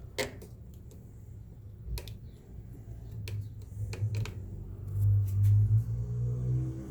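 Scattered light clicks and taps of plastic as the faceplate cover is fitted onto a Ring Video Doorbell, with a low steady rumble growing louder about five seconds in.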